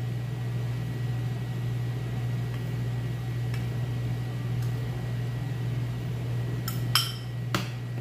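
Dry cornmeal and flour poured from a bowl into a blender jar over a steady low hum, the blender switched off. Near the end, three sharp clinks of the bowl knocking against the jar and being set down.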